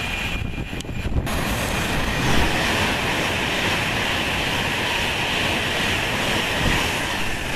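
Virgin Pendolino (Class 390) electric express running through the station at speed: a steady, loud rush of wheels on rail and air. The sound thins for a moment about half a second in.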